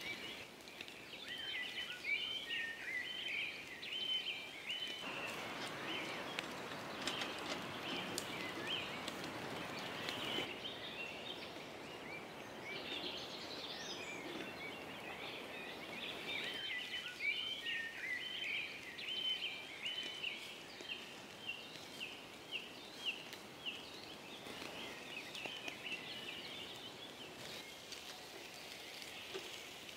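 Small birds singing, short chirps repeated several times a second. For a stretch in the middle, a sizzle and crackle of pork skewers grilling over hot charcoal joins them.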